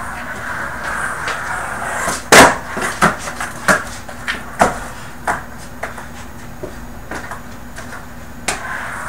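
Skateboard rolling on carpet, then one loud clack about two seconds in as the board slams down, followed by a run of smaller clatters and knocks that taper off. Another single knock near the end, then rolling again.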